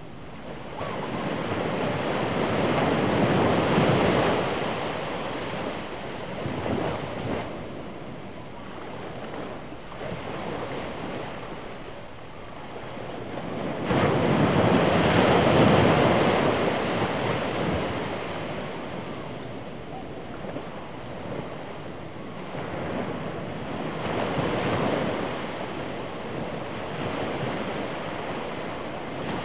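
A rushing noise that swells and fades in long surges, loudest a few seconds in and again about halfway through.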